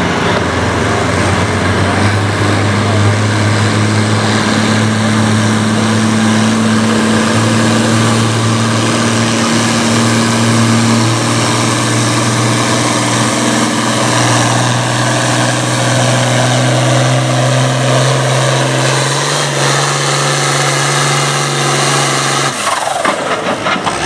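International 1066 Turbo farm tractor's turbocharged diesel engine running hard under full load while it drags a weight-transfer pulling sled. Its steady note steps up in pitch twice, then drops away about a second and a half before the end.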